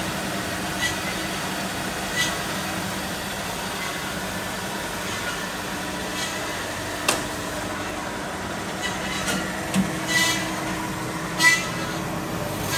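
Automatic metal-cutting bandsaw running: a steady motor hum with several short, bright squeals at irregular moments and one sharp click about seven seconds in.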